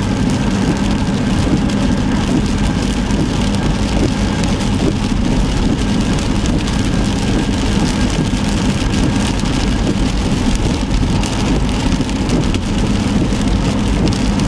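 Inside a car driving on a rain-soaked highway: steady tyre and road noise on the wet pavement with a low engine drone, and heavy rain on the windshield.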